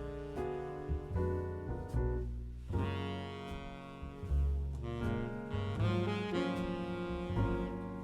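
Background music: an instrumental jazz-style tune with saxophone, piano and a walking bass.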